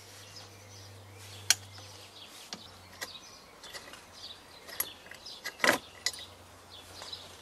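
Allen key working the exhaust bolts on a 50cc two-stroke mini bike's cylinder, making a handful of light metallic clicks and ticks, the loudest about two-thirds of the way through. Birds chirp faintly in the background.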